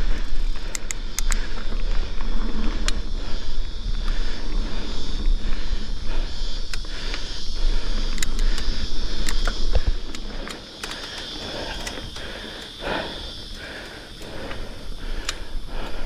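Mountain bike climbing a dirt trail: the rider breathing hard as he pedals uphill, over a steady low rumble of wind and riding noise on the camera microphone, with scattered sharp clicks and rattles from the bike. The noise drops for a few seconds about two-thirds of the way through.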